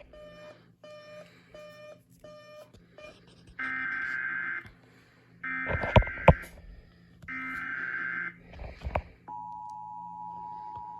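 Emergency Alert System broadcast tones: a few faint short beeps, then three one-second bursts of warbling SAME header data tones, then the steady two-tone EAS attention signal starting near the end. A couple of sharp clicks sound over the second data burst.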